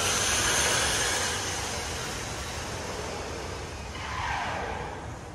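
Electric motor and drivetrain of a Tamiya G6-01 radio-controlled truck on a 2S LiPo whining at speed, loudest in the first second, with tyre hiss on concrete. About four seconds in comes a second whine that drops in pitch as the truck slows.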